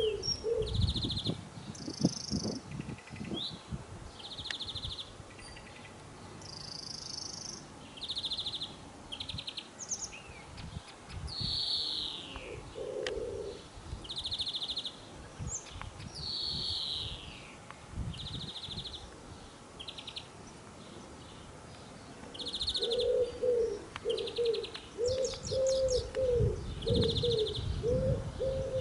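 European greenfinch singing: short trills repeated every second or two, with two long, falling, wheezing notes near the middle. A dove coos low in the background at the start and through the last few seconds.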